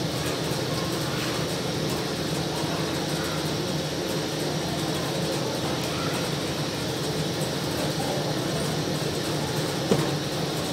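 Steady mechanical drone of a running motor with a low hum, and one short light knock near the end.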